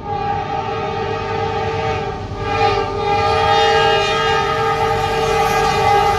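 Norfolk Southern diesel locomotive's multi-chime air horn blowing a long, steady blast for a grade crossing, dipping briefly about two seconds in.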